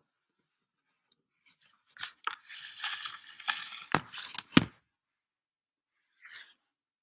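Close handling noise on the recording device: rustling and scraping for about three seconds, with two sharp knocks near the end of it, then a brief rustle.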